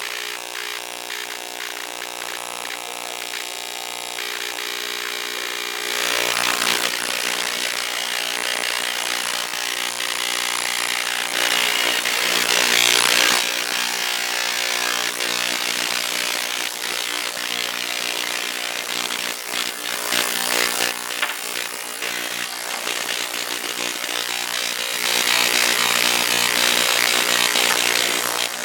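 Ultrasonic cleaner running with its tank empty: a steady hum overlaid by an uneven rasping buzz that comes and goes, with louder spells about six seconds in, around twelve seconds and near the end. The owner takes the noise for something loose inside the unit touching the tank from the inside, not anything in the tank.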